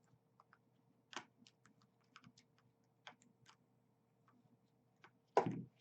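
Small, irregular clicks and cracks of 3D-printed plastic support material being snapped and picked off a print, with a louder snap near the end.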